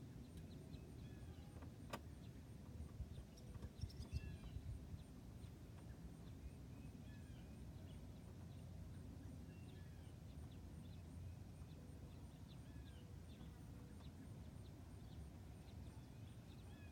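Quiet outdoor background: a low steady rumble with faint bird chirps scattered throughout. A sharp click comes about two seconds in, and a few light knocks follow around four seconds.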